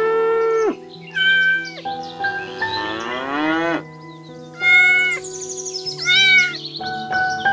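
Cat meows, three short ones about a second, four and a half seconds and six seconds in, following a longer held animal call at the start. A rising glide sounds in the middle, over soft background music.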